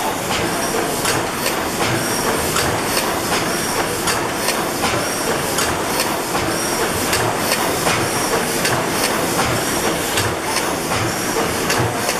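A Snow (Worthington) 600-horsepower reciprocating natural gas engine running, with an even, rhythmic clatter from its valve gear over a steady hiss.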